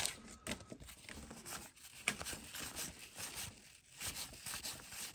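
Brief crinkle of a torn wax-paper card-pack wrapper at the start, then faint rustling and light clicks of a stack of baseball cards being handled and flipped through by hand.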